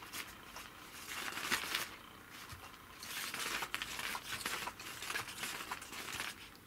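Catch Me If You Can 2 electric cat toy: a crinkly rustling as its motorized wand sweeps under the fabric cover. It comes in bursts, the longest from about three seconds in until shortly before the end.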